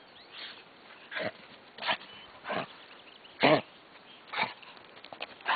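A dog sniffing close to the microphone: a string of short breathy puffs, about one every two-thirds of a second, the loudest about three and a half seconds in.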